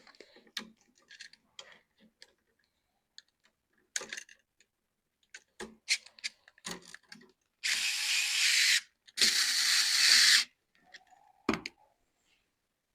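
Scattered clicks and taps of a screwdriver and stiff wires being worked at an electrical outlet's screw terminals, with two loud, harsh noisy bursts of about a second each near the middle.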